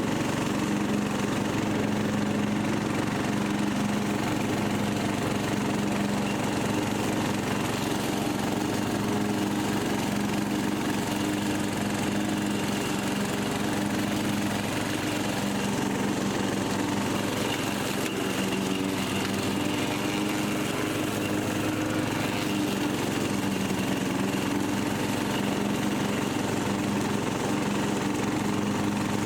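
Rebuilt Briggs & Stratton 17.5 HP lawn mower engine running steadily at a constant speed.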